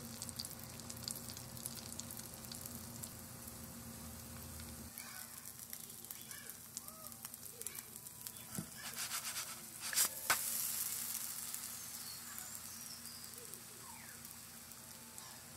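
Pancake batter sizzling in hot fat in a nonstick frying pan, a steady crackling hiss. About ten seconds in there is a sharp knock as the pancake is flipped, and the sizzling gets louder for a moment.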